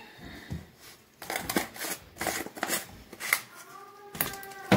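Plastic seasoning bottle and cap being handled, with a quick series of dry rustling, rattling bursts, and a sharp click near the end.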